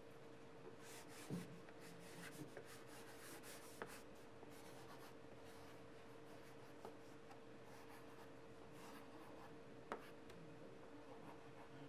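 Faint scratching of a plastic stylus writing cursive on an LCD writing tablet, in short strokes with a few light clicks of the pen tip, over a faint steady hum.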